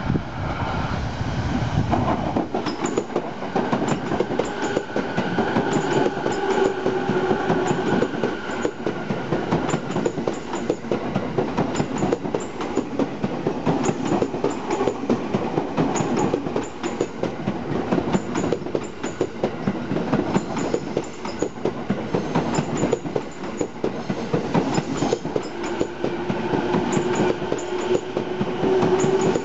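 JR East E217 series electric multiple unit rolling slowly past as it pulls into a station, wheels clicking over the rail joints. A steady whine rises out of the running noise twice, in the middle and near the end.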